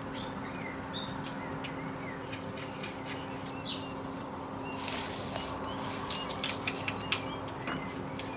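Light clicks and taps of a small nut and metal standoff being handled and threaded on a battery-pack stack, with birds chirping in the background and a steady low hum.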